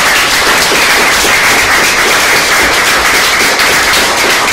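Audience applauding: loud, dense clapping.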